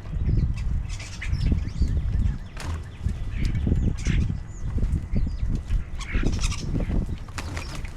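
Small birds chirping and calling in quick, repeated short notes, with wings flapping, over a continuous low rumble.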